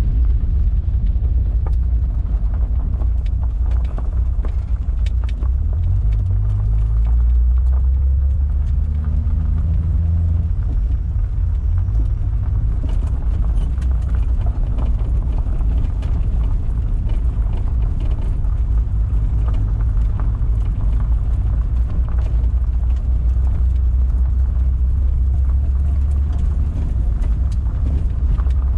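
1973 Datsun 240Z's 2.4-litre straight-six running at low road speed, heard from inside the cabin, with a low rumble and scattered ticks and crunches from the tyres on gravel. The engine note climbs for a few seconds partway through, then settles back.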